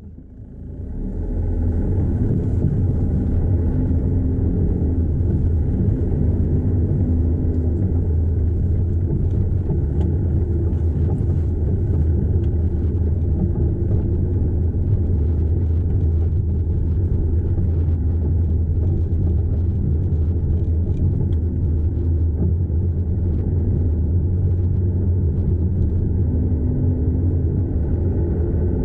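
Steady low rumble heard inside the cabin of a Land Rover Freelander 2 with the 2.2-litre TD4 diesel, driving along a dirt byway; it builds up over about the first second and a half, then holds.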